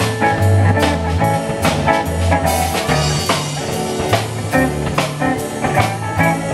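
Live blues band playing an instrumental passage on electric guitars, keyboard and drum kit, with a steady drum beat under the bass line.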